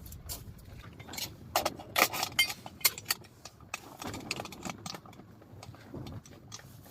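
A knife shaving ginger slices into a cooking pot, making irregular scrapes and sharp clicks of metal cookware.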